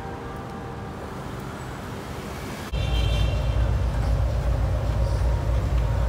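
Downtown street traffic with bells ringing faintly under it. About three seconds in, the sound jumps abruptly to a louder, deeper traffic rumble.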